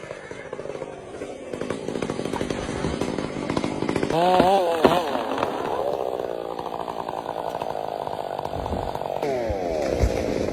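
Two-stroke chainsaw engine running, revving up and down: its pitch rises and falls twice about four seconds in, and it drops off again near the end.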